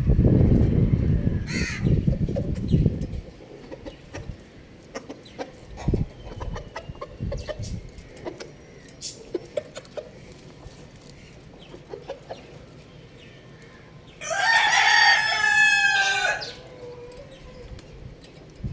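Rooster crowing once, a loud cock-a-doodle-doo of about two seconds near the end, with soft scattered clucks and ticks before it. A loud low noise fills the first three seconds.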